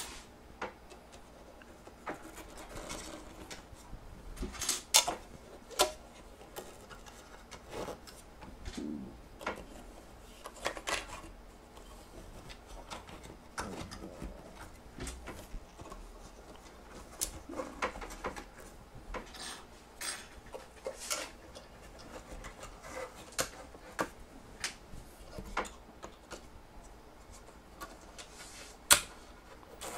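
Small metal frame-backing springs being pressed down into the back of a picture frame and slid under its lip: scattered light metallic clicks and scraping, with a sharper click every few seconds.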